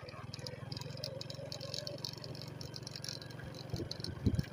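An engine running steadily, a low drone with a light rattle over it.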